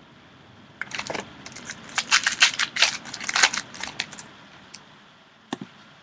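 Foil trading-card pack wrapper being torn open and crinkled: a rapid run of crackling rustles lasting about three seconds, then a single click.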